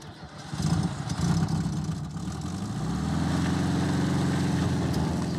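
Volkswagen Type 2 pickup's air-cooled flat-four engine starting: it runs unevenly for a couple of seconds, then picks up slightly in pitch and settles into a steady run.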